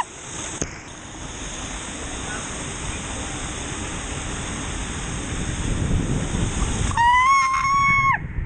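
Water rushing and sloshing as an inner tube slides down a spiralling waterslide flume, with a high, steady squeal of about a second near the end.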